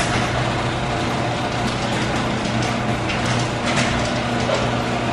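A motor vehicle's engine running steadily: a constant low hum under an even, noisy rumble.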